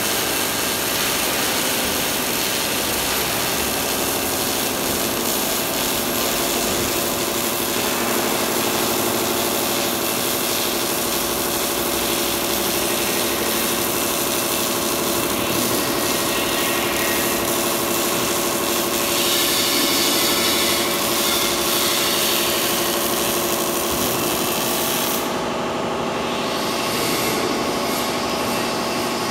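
MIG welding arc crackling and hissing steadily as a bead is laid on a steel beam, stopping about 25 seconds in, over a steady machinery hum.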